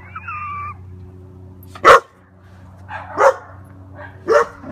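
German Shepherd puppy barking: a short high whine at the start, then three sharp barks, the first and loudest about two seconds in.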